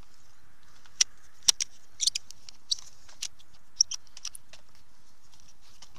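Irregular sharp clicks and taps from a carbon fishing pole and its plastic kit being handled, about eight in the first four seconds.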